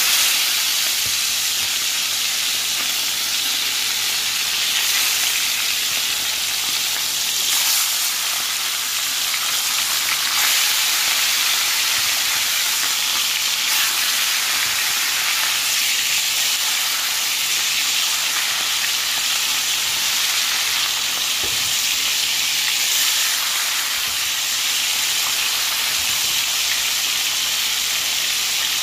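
Seasoned chicken pieces sizzling steadily in hot oil in a skillet as they brown.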